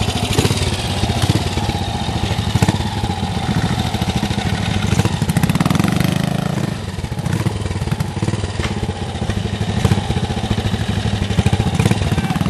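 Vintage trials motorcycle engine running at low revs under load on a steep climb, with the revs picking up briefly about halfway through.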